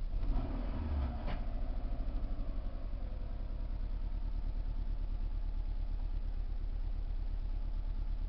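Subaru EJ22T turbocharged flat-four idling roughly and below about 750 rpm: a misfire. The engine swells briefly at the start, a sharp click comes about a second in, and then it settles into a steady, uneven low pulse.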